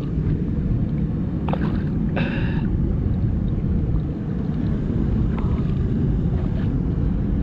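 Steady low rush of water pouring through a concrete spillway, with a few small clicks and a short higher-pitched sound about two seconds in.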